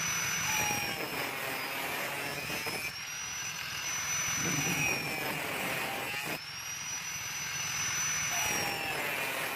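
Angle grinder with a thin cut-off disc running with a high whine and cutting through a small metal tube. The pitch sags as the disc bites into the metal and rises again as it eases off, with a rough grinding hiss underneath.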